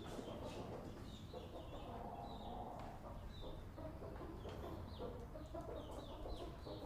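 A flock of chickens clucking and chirping inside a barn, many short high calls overlapping several times a second over a low steady rumble.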